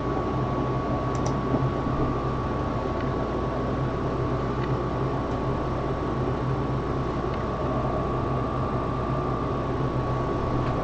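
Steady background hiss with a low hum and a thin, steady high whine, like a fan or air conditioner running in a small room. A couple of faint clicks about a second in.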